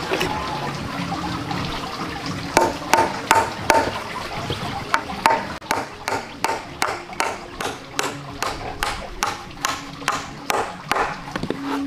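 Hatchet chopping a notch into a bark-on log: a run of sharp wooden knocks, scattered at first, then a steady rhythm of about three strikes a second from the middle on.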